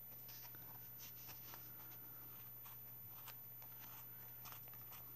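Scissors snipping through tightly wound, hairy wool yarn: faint, crisp snips coming irregularly, several over the few seconds, over a low steady hum.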